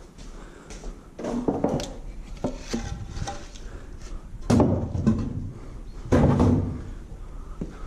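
Bangs, knocks and rattling of objects being shifted about in a shed. There are several loud impacts, the loudest about four and a half and six seconds in, over a steady low hum.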